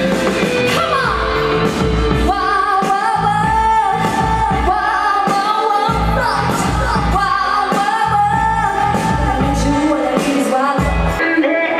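Pop song with a woman singing over a heavy, pulsing bass beat.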